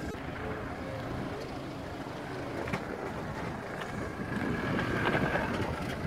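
Mitsubishi Pajero SUV's engine running steadily as it crawls over a rocky off-road track, getting louder near the end.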